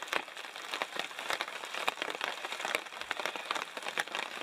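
Rain falling, with many irregular drops ticking and pattering over a steady hiss.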